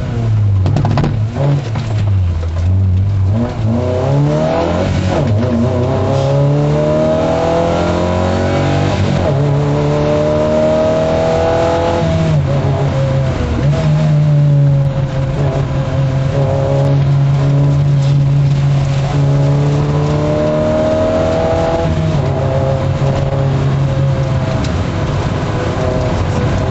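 MG F's four-cylinder engine heard from inside the cabin, pulling hard on a rally stage. The pitch climbs through the gears and drops back briefly at each upshift, and in the middle it holds steady at high revs for several seconds.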